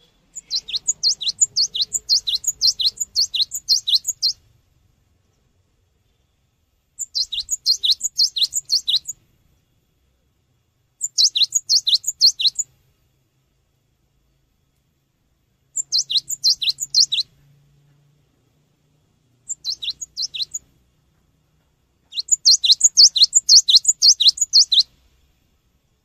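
Cinereous tit (gelatik batu) singing in six bouts of rapid, high, repeated notes, about four a second. Each note is a quick downward sweep, and the bouts are separated by pauses of one to three seconds.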